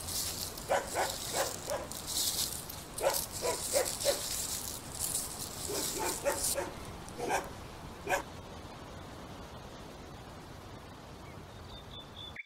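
Small puppy yapping: a string of short, high barks and yips, more than a dozen, coming in uneven clusters over the first eight seconds and then stopping.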